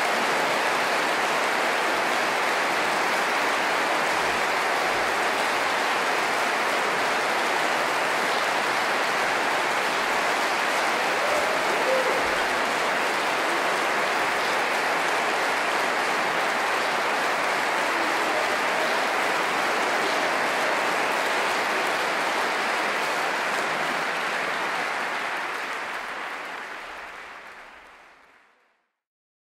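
Large audience applauding steadily, fading out near the end.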